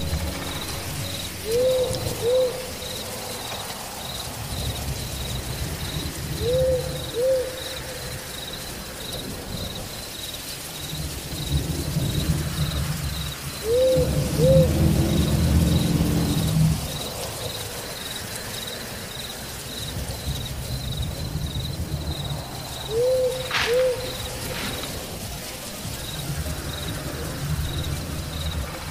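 Spooky night-ambience track: an owl hooting in double hoots, four times over, with a cricket chirping in steady pulses throughout and a low rumble underneath. One sharp crack comes about three quarters of the way through.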